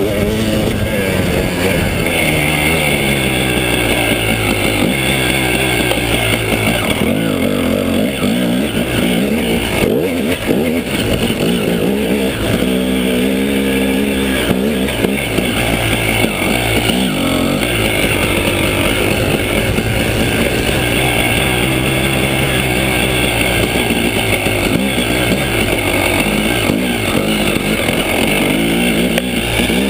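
KTM 300 EXC two-stroke single-cylinder enduro engine under way, its pitch rising and falling again and again as the throttle is opened and closed and the gears change.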